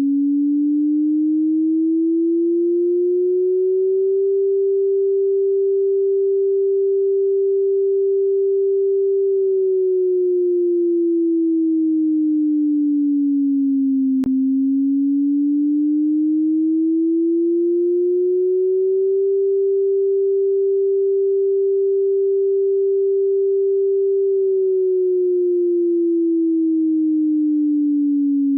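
Computer-generated tsunami warning siren signal, made to the national standard: a single pure tone with no voice announcement. It rises for about four seconds, holds steady for about five, then falls for about five, and this cycle runs twice.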